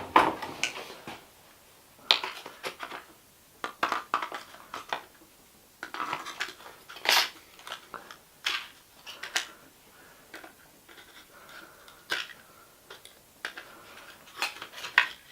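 Pliers and small metal and plastic parts clicking and scraping as the old tangled pull cord is worked out of a leaf blower's recoil starter: scattered, irregular clicks and rattles.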